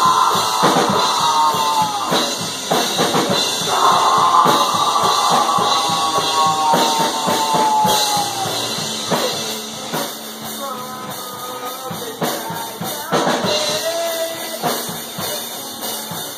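Rock band rehearsing: a drum kit playing under amplified vocals sung into a handheld microphone, with long held notes that slide down in pitch.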